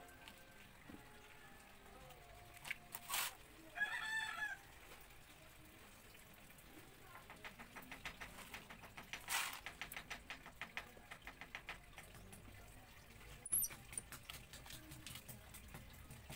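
A chicken gives a short call in the background about four seconds in. Around it are faint handling sounds: a few sharp clicks and a run of quick light ticks in the middle.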